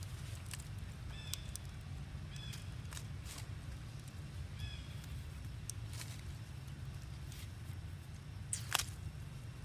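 Outdoor ambience over a steady low rumble: a few short high chirps, scattered light rustles and clicks as a monkey moves over dry leaves, and one sharper crackle near the end.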